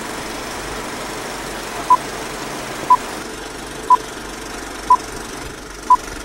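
Film countdown leader beeps: short, identical high beeps, one each second, five in all starting about two seconds in, over a steady hiss.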